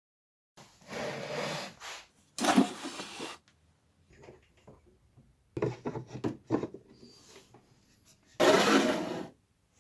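Rasping, rubbing strokes on a workpiece, in four spells of about a second each, with no motor running.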